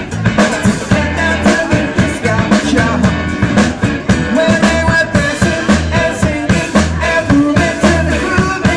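Live band playing upbeat music with a steady drum beat and a repeating bass line.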